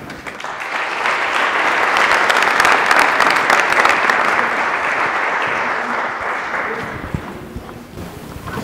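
Audience applauding: clapping that swells over the first second or two and dies away near the end.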